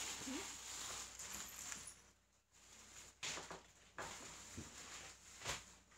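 Quiet room with a few soft knocks and clicks spread over the last few seconds.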